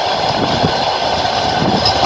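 Passenger train carriage rolling along the track, heard from on board at the window: a steady rumble and hum with uneven low thumps from the wheels.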